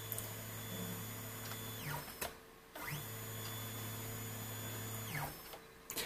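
Stepper motors of a T8 Mini CNC mill jogging the head in two moves of about two and a half seconds each. Each move is a whine that rises in pitch, holds steady, then falls as the axis slows to a stop. There is a click between the moves and another near the end.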